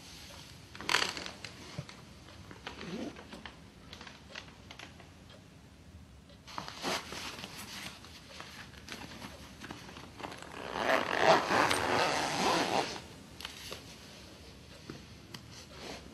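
Clothing and bedclothes rustling in short scrapes, with a longer, louder rasping rustle about eleven seconds in.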